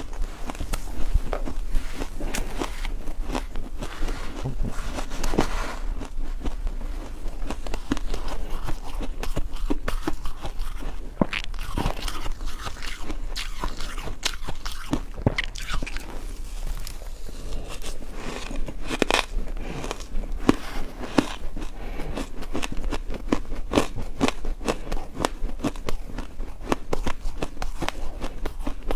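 Ice being bitten and chewed close to the microphone: dense, irregular crunching and cracking.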